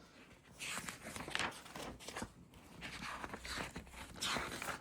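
Rustling and handling noises from the kit's packaging and parts, in several short bursts.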